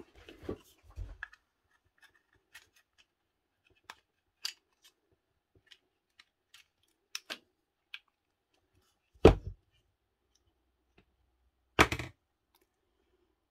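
Small scattered clicks and scrapes of a small screwdriver prying the carbon brush holder out of a Makita 8410BV drill's plastic housing, with two louder knocks about nine and twelve seconds in.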